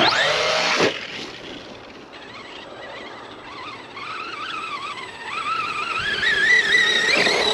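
Arrma Big Rock V3 RC monster truck's electric motor whining up sharply under hard throttle at the start. It then runs on with a wavering whine that climbs slowly in pitch and grows louder toward the end as the throttle changes.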